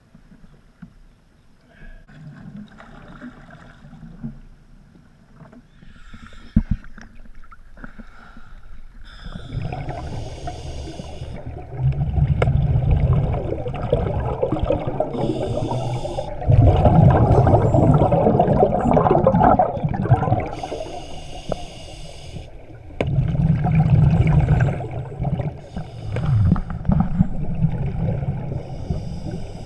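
Scuba divers breathing through their regulators underwater, heard through the camera housing. Short hissing inhalations alternate with longer rumbling bursts of exhaled bubbles, several breaths in a row, growing loud about a third of the way in.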